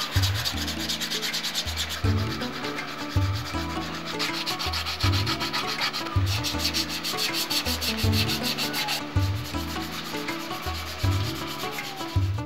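Sandpaper rubbing in quick back-and-forth strokes over a hand-carved wooden mask, smoothing the carved surface.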